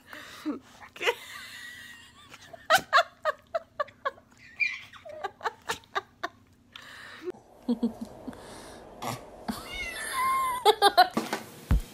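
A baby giggling in short bursts, then a cat meowing several times.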